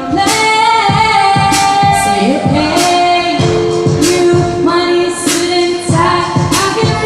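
A woman singing a song with held notes over a musical backing with a beat.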